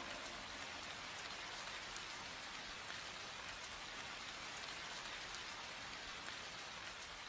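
Faint, steady rain-like hiss with fine crackle after the song has stopped, fading out near the end.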